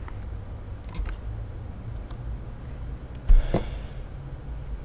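A few scattered clicks from a computer keyboard and mouse over a steady low hum, with one louder short thump a little past the middle.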